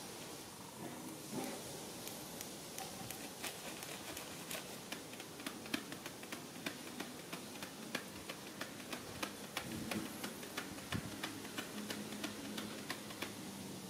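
Baby macaque sucking on its fingers: a run of quick, irregular wet clicks, several a second, growing busier after a few seconds.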